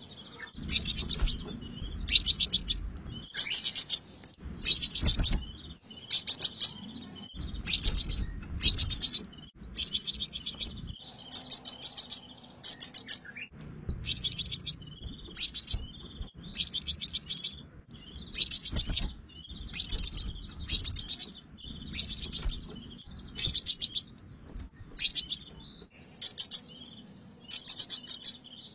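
Sunbird calls: rapid, high chirping phrases repeated one after another with short gaps. This is a lure recording used to call sunbirds to a trap.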